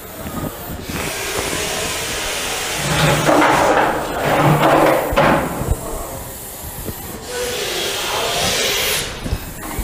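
Russell's viper hissing loudly in long, drawn-out breaths, one after another.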